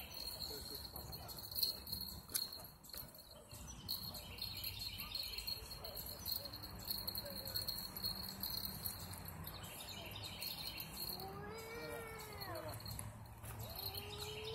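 Lakeside ambience: insects trilling steadily at a high pitch over a faint low rumble, with one long call near the end that rises and then falls.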